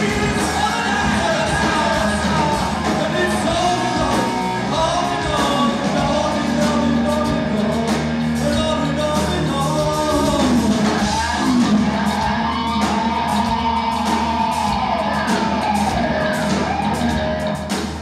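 A heavy metal band plays live, with a male singer's gliding, wailing vocal over distorted electric guitar, bass and drums. He holds a long high note in the second half.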